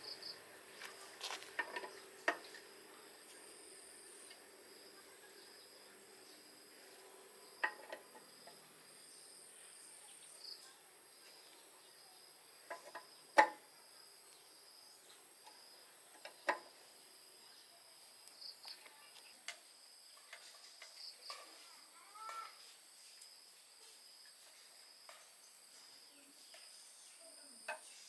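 Faint steady high chirring of crickets, broken by scattered sharp clicks and knocks, the loudest about halfway through.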